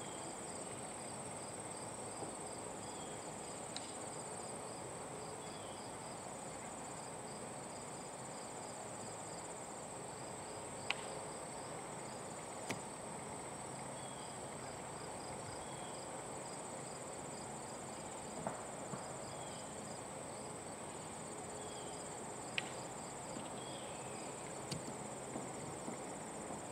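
Field insects such as crickets chirping steadily: a continuous high trill with a second, evenly pulsing call under it. A few short sharp ticks stand out over it, the loudest about eleven seconds in.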